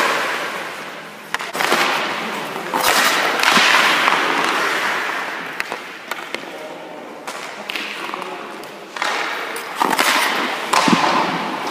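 Hockey skate blades scraping and carving across the ice in several long sweeps that fade out, with a few sharp cracks of pucks being shot off sticks.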